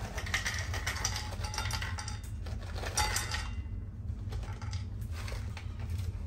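Cashew nuts poured from a plastic bag onto a plate on a kitchen scale: a quick patter of small clicks for about three and a half seconds, then a few scattered clicks. A steady low hum runs underneath.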